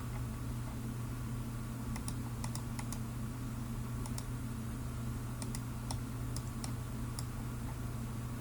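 Light, scattered clicking at a computer, about a dozen sharp clicks between about two and seven seconds in. Under it runs a steady low electrical hum.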